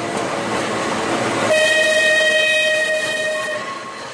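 Manx Electric Railway tram rolling on its rails, with a steady high-pitched wheel squeal for about two seconds in the middle as the wheels take a curve; the running noise fades near the end.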